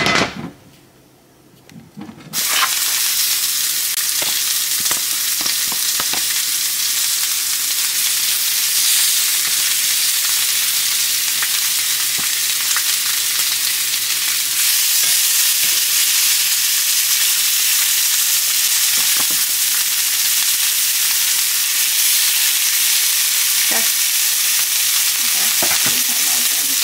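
Seasoned lamb chops frying in hot olive oil in a cast iron skillet: a loud, steady sizzle that starts suddenly about two seconds in as the first chop goes into the pan. A knock right at the start and a few light clicks as more chops are added.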